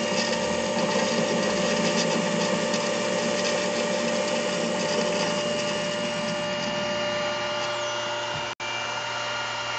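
The motor of a 16U04P bench lathe, driven by a frequency converter, running steadily in reverse: an even hum with a steady whine over it. The sound drops out for an instant near the end.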